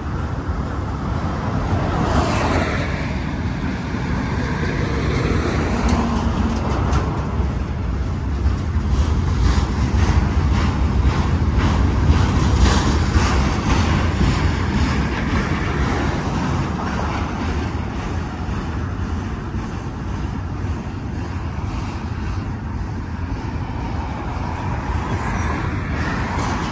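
Double-stack intermodal freight train rolling past below: a steady low rumble of the container cars' wheels on the rails, with clicking and rattling that peaks in the middle.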